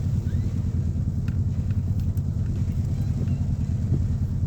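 Car driving on the road, heard from inside the cabin: a steady low rumble of engine and tyre noise, with a few faint ticks.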